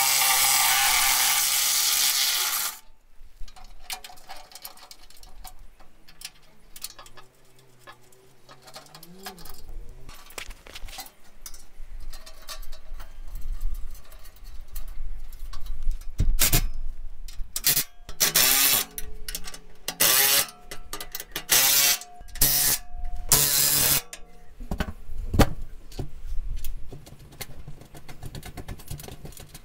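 A power driver spins a socket to back out a bolt for about three seconds. Then come knocks and scrapes as the under-body bash plate is handled and lifted into place, and a series of short bursts of tool noise and clatter about two-thirds of the way through as it is fastened back on.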